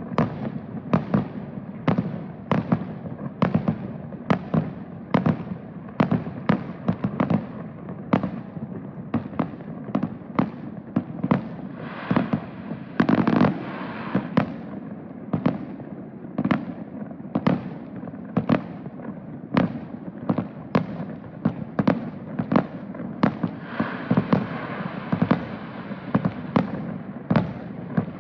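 Aerial fireworks booming in rapid succession, about two sharp bangs a second. Two spells of crackling shells come through, one about halfway and one near the end.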